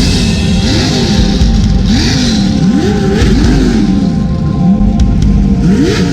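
Off-road race vehicle's engine revving, its pitch climbing and falling several times as it accelerates through the gears, with background music underneath.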